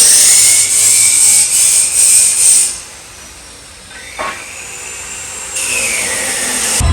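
Shop power tool running in two spells, a loud, high, hissing whir for the first few seconds, then quieter, and starting again near the end with its pitch falling.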